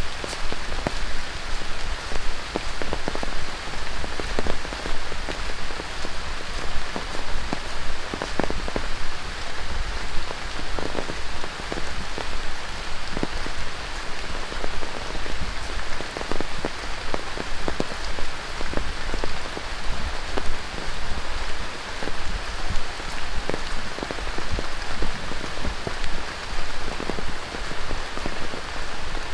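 Rain falling on dense tropical rainforest foliage and a wet trail: a steady hiss with many separate drops striking close by at irregular intervals.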